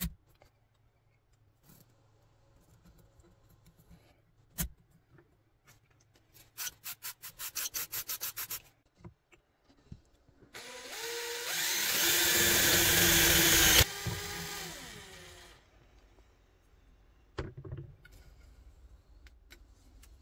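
Cordless drill spinning up and driving a twist bit through a steel washer on a steel tube, a loud metal-cutting grind for about three seconds before the motor winds down. Before it come a few sharp clicks and a quick rattling run of clicks.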